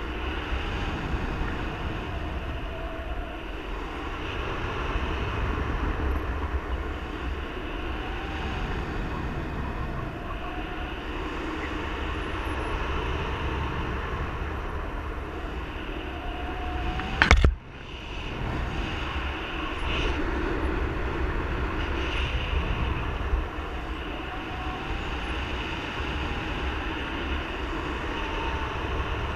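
Airflow rushing over the microphone of a paraglider pilot in steady flight, a continuous wind noise with faint wavering tones. A single sudden loud knock sounds about seventeen seconds in.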